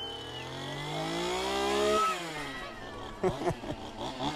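Gasoline chainsaw revved up steadily for about two seconds, then let drop back, followed by a few sharp short sounds and another quick rev near the end.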